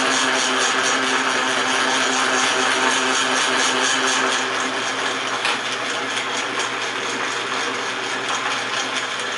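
A 1940 Sheldon 11-inch metal lathe running under power, its gear train turning the lead screw slowly with the half nuts engaged so that the carriage feeds along the bed. It makes a steady hum with a fast, even ticking from the gearing, and a single click about halfway through.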